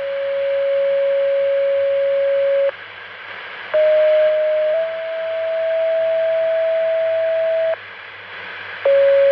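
Two-tone sequential paging tones over a scanner radio. The tail of one long tone ends about three seconds in. A second pair follows: a one-second tone stepping up to a higher tone held about three seconds. A third pair starts near the end. Each pair paged out a different responding agency, over steady radio hiss.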